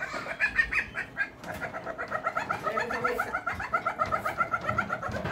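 Civets mating, one calling in a rapid run of short clucking notes. After a few scattered notes, the run starts about a second and a half in and keeps an even pace of about seven notes a second.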